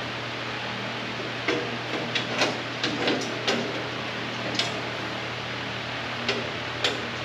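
Light metal clicks and taps, about a dozen of them starting about a second and a half in, as metal parts are set in place and test-fitted onto a mower frame. Underneath runs a steady hiss and hum.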